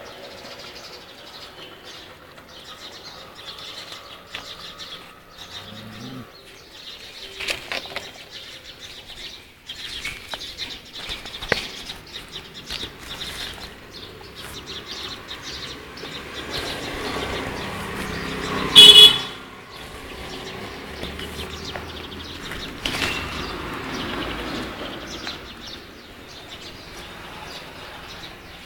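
Outdoor ambience with birds chirping and scattered rustling and knocks. About two-thirds of the way through, one brief, very loud, high-pitched cry stands out.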